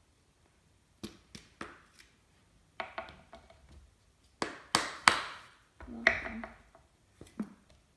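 Plastic glitter-glue bottles and lids being handled and set down on a tabletop: about ten light, irregular knocks and taps, the loudest around five seconds in.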